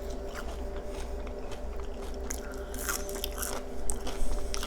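Close-miked biting and chewing of a crispy ketchup-dipped tater tot: scattered crunchy, wet mouth clicks, thickest around the middle, over a steady low hum.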